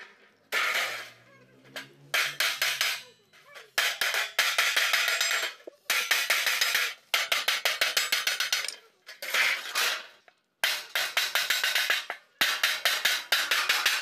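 Wooden mallet striking galvanized steel sheet held over a steel edge, bending it into a fold. Quick runs of sharp taps, several a second, broken by short pauses.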